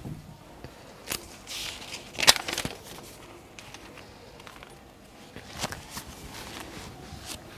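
A duster wiping a whiteboard: short scraping strokes and clicks against the board, with one sharp knock a little over two seconds in.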